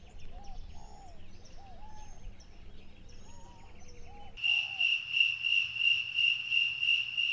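Daytime outdoor ambience with scattered bird calls and chirps. About four seconds in, it cuts to a louder night-time chorus of crickets: a steady high trill pulsing about three times a second.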